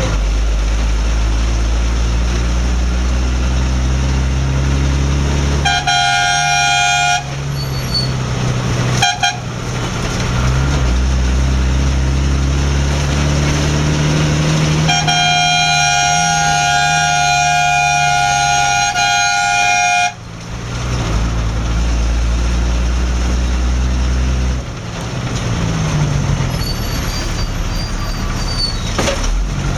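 A motor vehicle's engine runs and revs up and down through stop-and-go traffic. A vehicle horn honks about six seconds in, gives a short toot near nine seconds, then sounds one long, steady blast of about five seconds around the middle.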